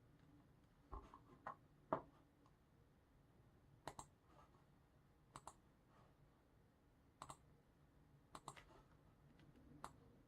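Faint, sparse clicking of a computer mouse and keyboard: a few short clicks, mostly in quick pairs, about every second or so.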